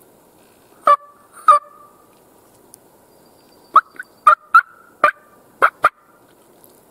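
Hen turkey calls made on a mouth call: short, sharp, loud notes, two about a second in, then a quick run of about six more.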